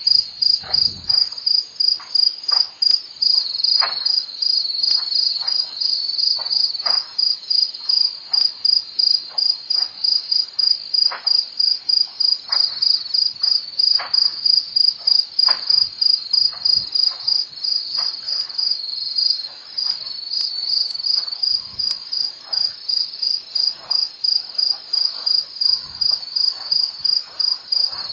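Crickets chirping in a steady, rapid, high-pitched pulse, with scattered faint clicks and snaps underneath.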